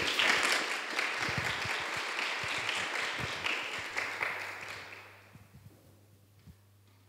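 Audience applauding, the clapping fading away over about five seconds.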